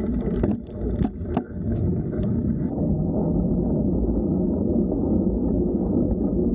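Low rumbling noise of a bicycle ride, tyre rumble and wind on the microphone, with a few sharp clicks in the first two seconds or so. A little over two and a half seconds in, the sound suddenly turns muffled, its upper range gone.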